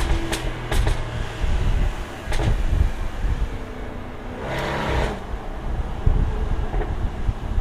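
2016 Jaguar F-Type V8 R's supercharged 5.0-litre V8 off the throttle at low revs, its exhaust crackling and popping: a few sharp cracks in the first couple of seconds, then a longer burst of crackles about four and a half seconds in.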